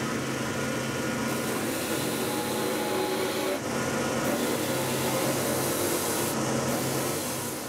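Drill press spinning a sanding drum while a dust extractor pulls air through the table, with the rasp of a wooden board being sanded against the drum. A low hum comes and goes as the board is worked.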